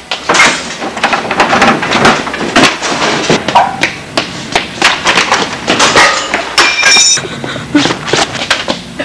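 A rapid, irregular string of loud knocks and thuds, like things being struck and knocked about, with a brief ringing metallic tone about seven seconds in.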